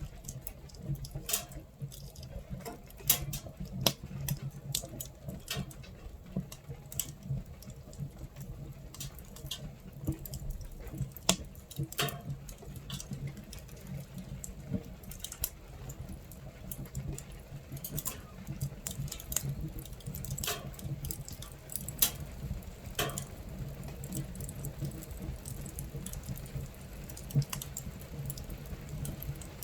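Fire in a camping stove crackling, with irregular sharp pops a few times a second over a steady low rumble, and rain pattering on the tent.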